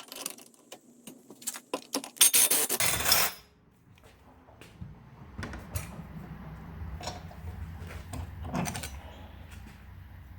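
Tools and a piece of metal being handled at a workbench: scattered metallic clinks and knocks, with one loud, harsh scraping burst lasting about a second a couple of seconds in.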